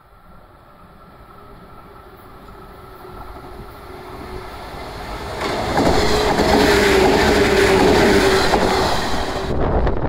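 A yellow JR West electric local train approaches and passes close by. Its wheel and rail noise grows over about five seconds and is loudest as the cars go by, with clickety-clack and a steady hum under it. The hiss drops off suddenly near the end.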